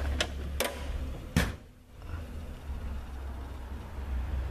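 A few light metallic clicks and then one louder clunk about a second and a half in, typical of a steel tool chest drawer being handled and pushed shut, over a steady low hum.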